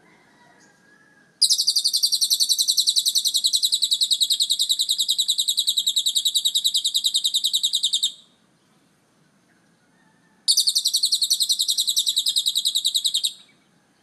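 Caged lovebird giving its long, rapid, high-pitched chattering trill (ngekek). It sings one even bout of about seven seconds, then a second bout of about three seconds after a short pause.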